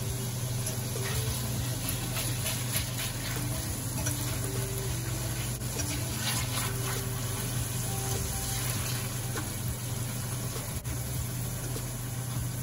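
Salmon and cod pieces sizzling in hot oil in a stainless steel frying pan: a steady crackling hiss.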